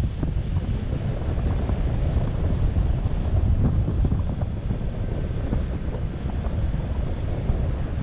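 Wind buffeting the microphone in flight under a paraglider: a steady, gusty low rumble.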